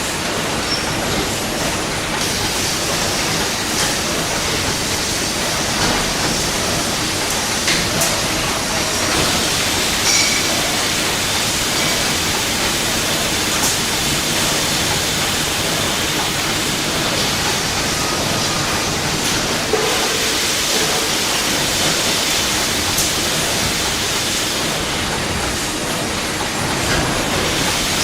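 Factory machinery running: a steady noisy din with a few faint clicks and knocks.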